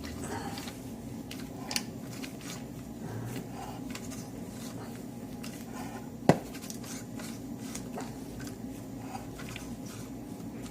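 Hand tap being turned by wrench into the metal bore of a beer tap handle, cutting threads: small metal clicks and scrapes, with one sharp click about six seconds in, over a steady low hum.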